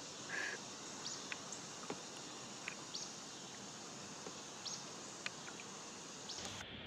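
Faint woodland ambience: a steady hiss with scattered short, high chirps that slide downward, about one every second, from small birds or insects.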